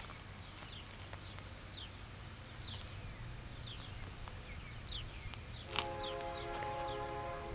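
Distant diesel locomotive air horn, a five-chime Nathan K5HL, sounding one long chord starting about six seconds in, over a low steady rumble.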